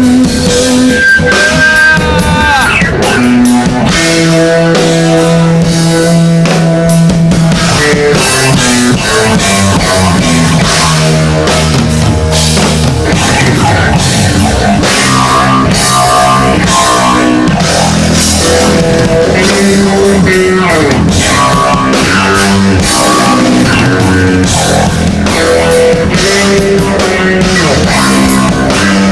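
Electric bass played through a jet phaser effect pedal, over a steady drum beat, with some notes sliding in pitch.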